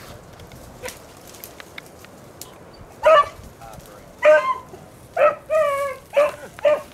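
Beagle hound giving tongue: a quick run of short, high bays, about six of them, starting about three seconds in, as the hound works a rabbit's scent line.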